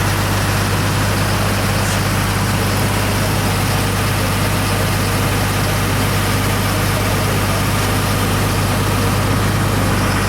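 Engine running steadily at a constant speed, a loud even low hum with no change in pitch.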